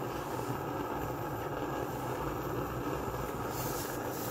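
East German Barthel petrol camping stove burning under a pan of water, its burner giving a steady rushing hiss.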